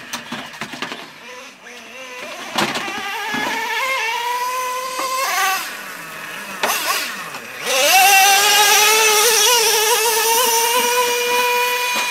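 Nitro-powered RC truck's small glow engine running at high revs, a high-pitched buzz that swoops up and down as the throttle is worked. About eight seconds in it climbs sharply and then holds high and steady at full throttle.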